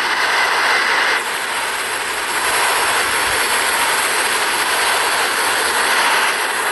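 Steady rushing noise inside an Airbus A340: airflow and engine noise. Its higher hiss drops away about a second in and comes back near the end.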